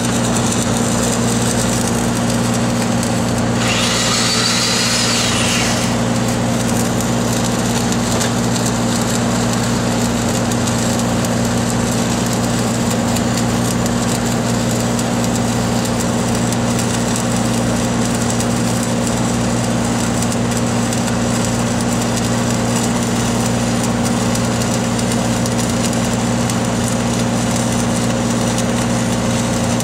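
An engine-driven welding machine runs steadily, under the continuous crackle of a stick-welding arc. About four seconds in, a brighter hiss lasts roughly two seconds.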